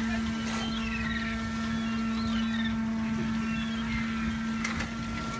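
Fishing boat's machinery droning steadily, with a strong constant hum under a low rumble. Faint short high chirps come and go above it.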